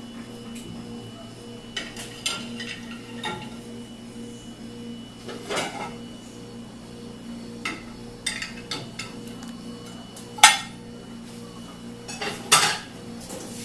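Dishes and cutlery clinking and clattering as they are handled, about a dozen separate knocks, the loudest about ten seconds in and another near the end, over a faint steady hum.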